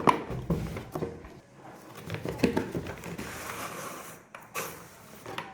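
Hands handling plastic toys and packaging: a run of light clicks, taps and rustles, busiest near the start and again about two and a half seconds in.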